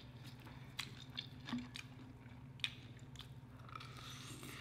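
Close-miked eating: scattered small crisp clicks from chewing fried chicken wings, then a wetter bite into a wing dipped in sweet and sour sauce near the end.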